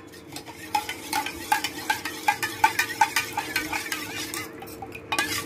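Steel spoon stirring agar-agar powder into a little cold water in a stainless steel tumbler, clinking and scraping against the metal sides about four times a second, easing off near the end. The agar-agar is being dissolved in cold water before it goes into the boiling water. A faint steady hum runs underneath.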